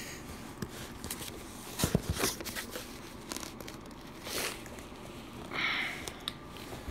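A mailing package being handled and torn open: scattered crinkling and tearing of paper and cardboard, with a few louder rustles about two, four and a half, and six seconds in.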